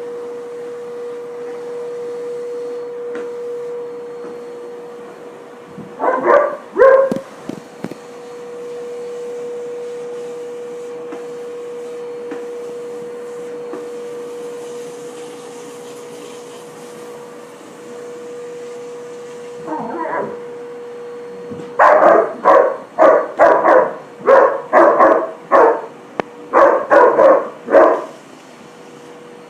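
A dog barking at a running vacuum cleaner, whose motor gives a steady drone: two barks about six seconds in, one more near twenty seconds, then a quick run of a dozen or so barks near the end.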